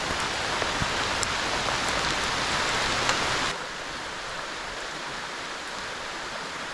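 Steady hiss of heavy rain falling, with creek water under it. About three and a half seconds in it drops abruptly to a quieter, duller hiss.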